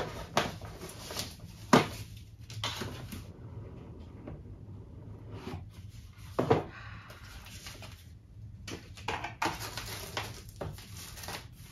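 A cardboard box being opened and unpacked by hand: irregular knocks and taps of the box and lid, with rustling of the packaging. The sharpest knocks come just under two seconds in and about halfway through.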